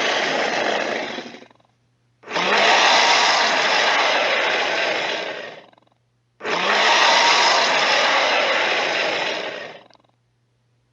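Carcharodontosaurus roar sound effects: the end of one roar, then two long roars of about three and a half seconds each, separated by short silences.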